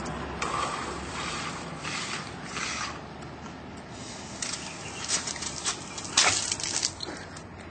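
Floor-standing hand air pump being worked in short, uneven strokes, each a brief hiss of air, pressurising a half-filled plastic bottle water rocket.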